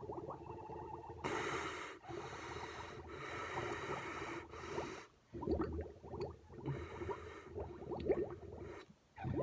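Milk bubbling and popping as air is blown through a drinking straw into a glass. A little over a second in, the bubbling gives way to several loud, hissing breaths through the nose, with the lips kept on the straw. It resumes from about halfway on, broken by one more breath.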